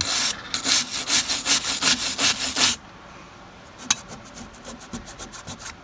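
Wire brush scrubbed quickly back and forth over a brake pad to clean off the dust, about five strokes a second. A little under halfway through it drops to much fainter, lighter strokes.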